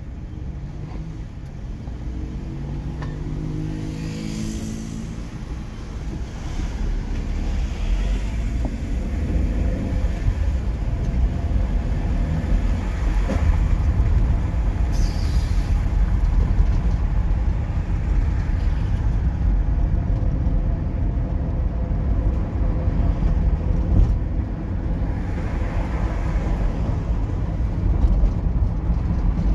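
Road vehicle driving along a city street: steady engine and road rumble. An engine climbs in pitch as it speeds up in the first few seconds, and the rumble grows louder after that.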